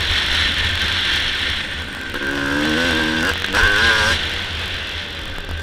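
Suzuki RM250 single-cylinder two-stroke motocross engine running under throttle while riding, heard from a camera mounted on the bike. Its pitch wavers up and down a couple of seconds in as the throttle changes.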